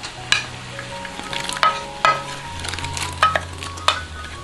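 Water bubbling at the boil in a pot, with about eight sharp, irregular clinks of a utensil against the dishes as chopped water chestnut and pea starch are added.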